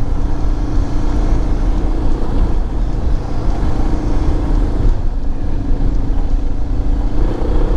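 Suzuki DR650's single-cylinder engine running steadily while the motorcycle is ridden along, under a heavy low rush of wind noise.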